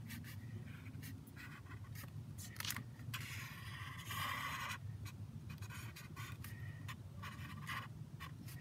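Felt-tip marker drawing on paper: a run of short strokes, with one longer, louder stroke about three seconds in.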